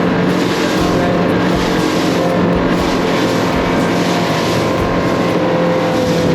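Boat's outboard motor running steadily under way, with a drone of wind and water rush.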